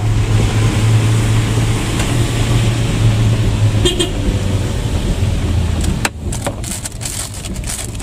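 Car driving, heard from inside the cabin: a steady low engine hum and road noise. About six seconds in the hum drops away and a run of sharp clicks and knocks follows. A brief high tone sounds about four seconds in.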